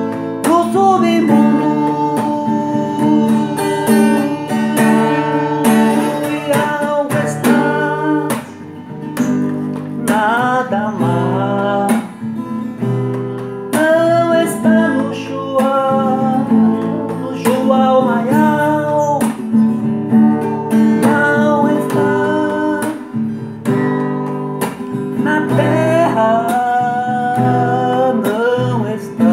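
Acoustic guitar playing a steady accompaniment, with a voice singing a gliding melody over it without clear words.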